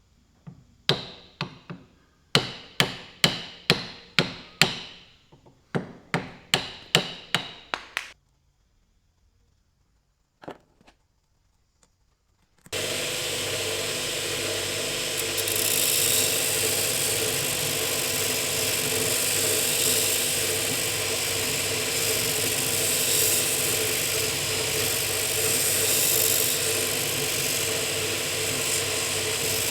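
Two quick runs of sharp hammer blows, about three a second, in the restoration of an old chisel. Then, after a pause and a single knock, a power tool starts up about halfway through and runs steadily with a constant hum.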